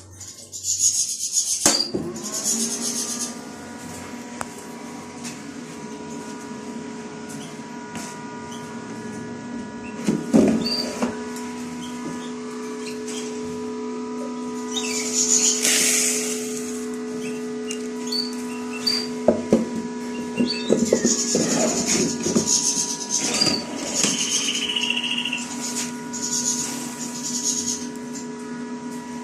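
Small electric motor of a bird-feed sifting machine starting about two seconds in and running with a steady hum, with repeated hissing, rattling bursts as the feed is sieved through it.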